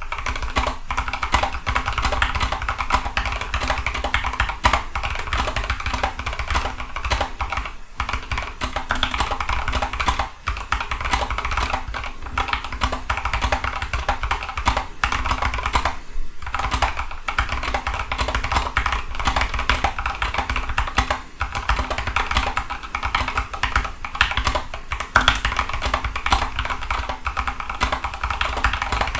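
Fast, continuous typing on a custom mechanical keyboard with lubed switches: a dense stream of keystroke clacks, broken by a few brief pauses.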